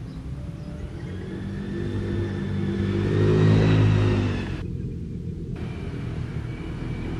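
A motor vehicle passing close by: its engine swells to a peak about three and a half seconds in, then fades back into steady traffic rumble.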